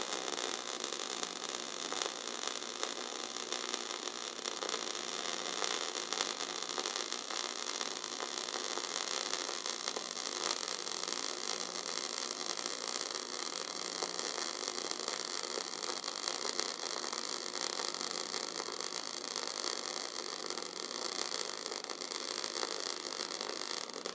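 MIG (gas metal arc) welding arc running continuously while a bead is laid, a steady crackling sizzle with no breaks.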